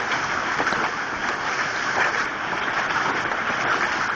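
Hailstones about an inch across and heavy rain pelting down: a dense, steady rush studded with many sharp strikes of individual stones.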